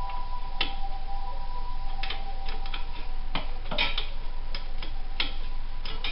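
Ratchet wrench clicking in short, irregular runs as a bolt on a Harley-Davidson Softail's muffler mount is turned.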